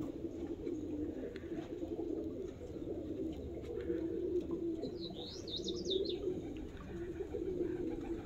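Domestic pigeons cooing continuously, several at once, with a short run of high chirps about five seconds in.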